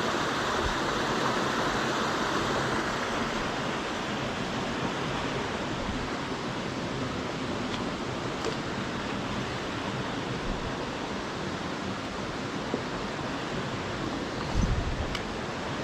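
Mountain stream rushing steadily, with a brief low rumble near the end.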